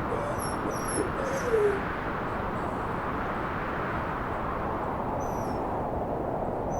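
Steady howling wind. About a second and a half in comes one short falling animal cry. A few faint high chirps sound briefly near the start and again near the end.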